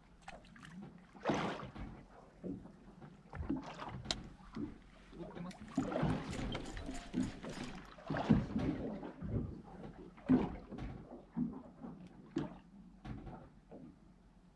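Water lapping and slapping against a small fishing boat's hull, with scattered irregular knocks from the boat.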